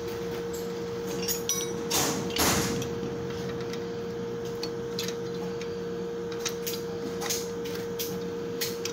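Metal clinks and scraping as a steel pipe wrench is fitted onto and grips a nut on a drill press head, with a louder rattling scrape about two seconds in and a few sharp clicks near the end. A steady hum runs underneath.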